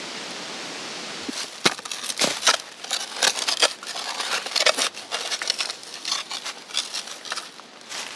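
Dry fallen leaves crackling and rustling, with scrapes of soil being dug, in quick irregular bursts that begin about a second in. Before them comes a steady rush of creek water.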